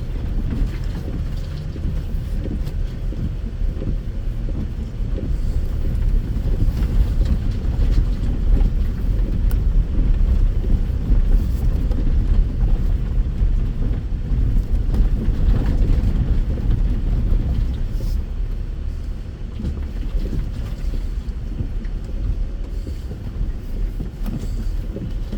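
Land Rover Discovery driving slowly along a rough, bumpy off-road track: a steady low engine and drivetrain rumble with the knock and jostle of tyres and suspension over the uneven ground.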